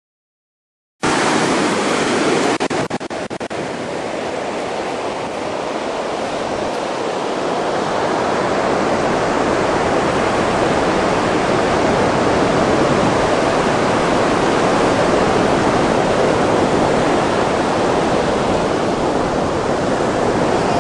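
Steady noise of ocean surf breaking on the shore, starting abruptly about a second in, with a few brief dropouts shortly after.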